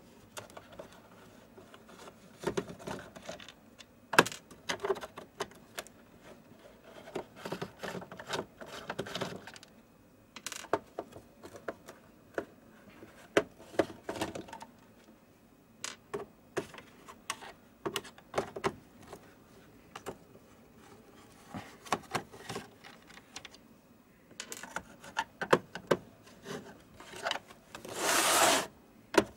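Hands-on repair work on a projector: irregular clicks, taps and short rubbing sounds of tools and plastic or metal parts being handled, with a louder scrape lasting about a second near the end.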